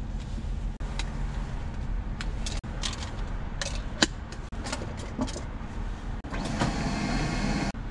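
Clear plastic canister of a bank drive-through pneumatic tube handled with sharp clicks, then about a second and a half of rushing air near the end as the tube system sends it off. A vehicle engine idles underneath.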